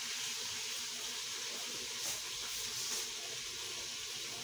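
A steady high hiss, with two faint clicks about two and three seconds in.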